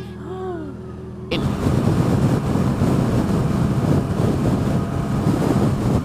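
Yamaha motorcycle engine idling with a steady low hum, then about a second in a sudden cut to the bike being ridden, its engine under a loud rush of wind buffeting the helmet microphone.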